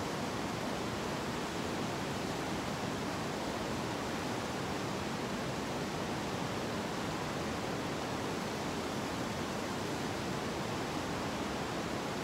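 Steady rushing of a river's fast current running over rocks.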